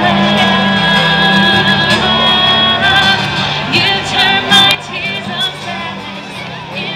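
Live band music through PA speakers: singing with acoustic guitar accompaniment. It drops noticeably in level about two-thirds of the way through.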